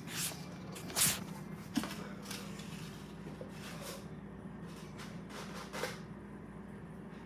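Rustling and scuffing from a handheld phone being moved about, a string of short soft brushes that stop about six seconds in, over a steady low hum.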